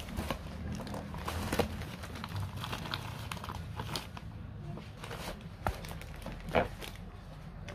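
Cardboard box being opened by hand: the flaps rustle and scrape, with crinkling of the paper-wrapped packs inside and a scatter of short taps, the loudest about two-thirds of the way in.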